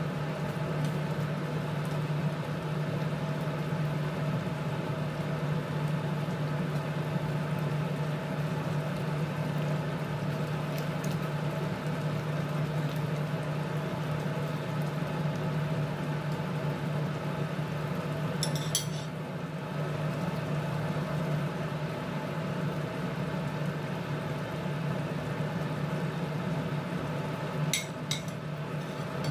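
Frying pan of chicken and peppers in tomato sauce simmering on the stovetop: a steady low hum with faint bubbling. Short metallic clicks of a utensil against the pan come about two-thirds in and again near the end.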